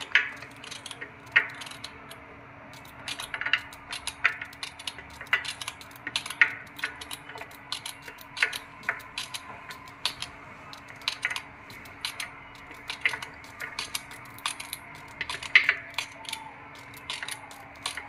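Fresh flat bean pods being cut by hand with a small knife, each cut a crisp snap, with the pieces dropping onto a steel plate; the clicks come irregularly, about one or two a second. A faint steady hum runs underneath.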